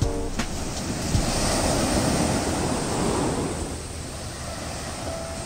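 Ocean surf breaking against a rocky shore, an even rushing wash that swells about a second in and eases off after three seconds, with wind on the microphone.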